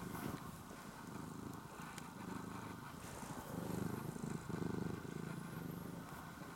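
Domestic cat purring close to the microphone, a low steady rumble that grows a little louder past the middle.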